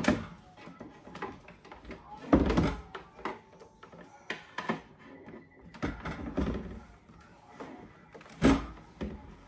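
Knocks and thumps of small kitchen appliances and items being set down and shifted in kitchen cabinets, with loud knocks at the start, about two and a half seconds in and near the end.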